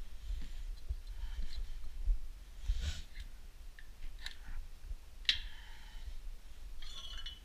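Scattered light metal clicks and scrapes as a dial gauge and its mounting bar are handled and shifted on an engine block, over a low handling rumble.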